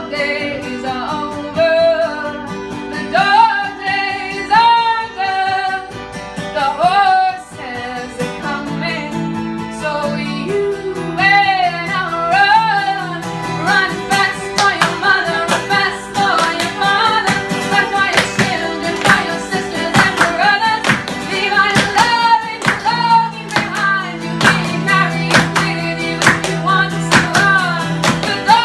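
A woman singing over a strummed acoustic guitar, with hand claps keeping the beat through the second half.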